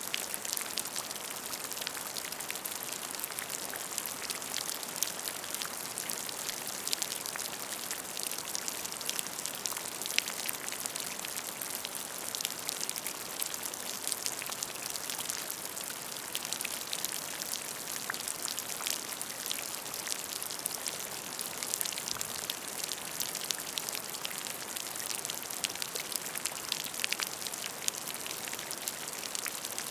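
Steady rain falling, a continuous hiss with many distinct drops pattering on a surface.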